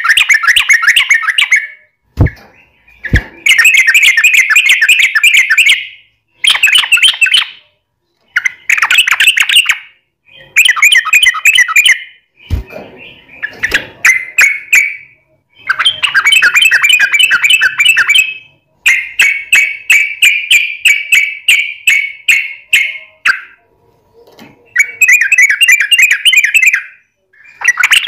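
Yellow-vented bulbul (trucukan) singing: loud phrases of rapid, chattering notes, each one to three seconds long, with short pauses between them.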